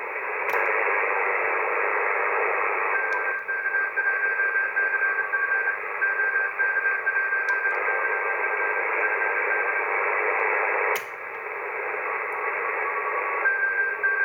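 Icom IC-7300 shortwave receiver audio on the 20 m band: a loud, steady hiss of band noise in a narrow voice passband, with a steady whistling tone from a carrier that drops out and comes back. A few sharp clicks are heard; the strongest comes about 11 seconds in, after which the noise briefly drops.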